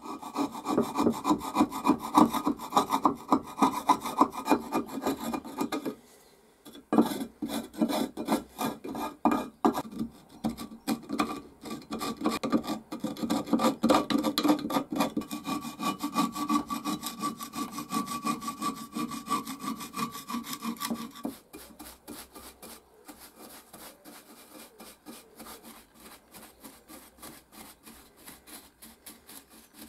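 Rapid back-and-forth scraping of rust inside a cast iron hand plane body, with a brief pause about six seconds in. About two-thirds of the way through it gives way to quieter scrubbing as a stiff bristle brush sweeps out the loosened rust.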